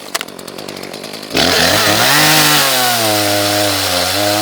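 Ported Echo CS-310 two-stroke chainsaw idling, then snapped to full throttle about a second and a half in and cutting into a log, its engine pitch dipping and recovering under load.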